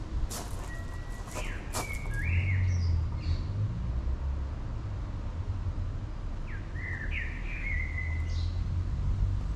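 Birds chirping in two short runs of rising calls, about two seconds in and again around seven seconds, over a steady low rumble, with a few sharp clicks in the first two seconds.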